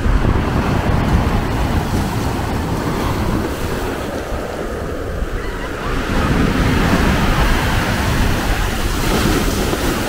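Sea waves breaking and washing up the shore, swelling louder about six seconds in, with wind rumbling on the microphone.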